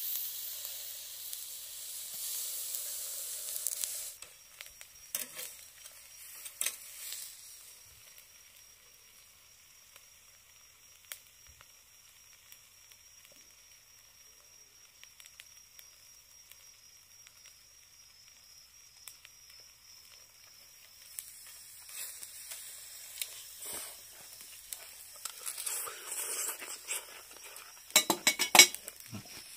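Pieces of beef omasum sizzling on a wire grill over charcoal in a shichirin. The sizzle is loudest in the first few seconds, then sinks to a faint hiss with scattered crackles, and builds again later. It ends in a cluster of sharp, loud crackles and clicks.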